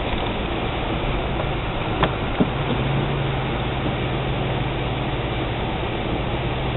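Suzuki XL-7's engine and cabin noise heard from inside the vehicle, a steady hum that strengthens slightly about two and a half seconds in. Two short knocks come about two seconds in.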